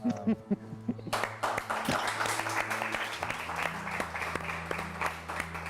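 Audience applauding, the clapping starting about a second in, with a steady low tone underneath.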